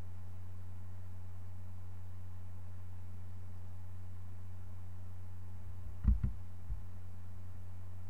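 Steady low electrical hum picked up by a computer recording microphone, with a quick cluster of two or three short thumps about six seconds in.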